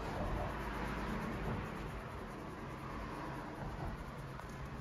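A small brush scratching back and forth across the bottom of a leather work boot in quick strokes, over a low steady hum.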